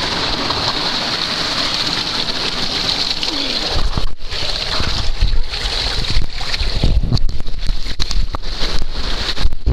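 Steady rush of water, then from about four seconds in, louder rumbling, knocking and splashing as a rider slides down a waterslide.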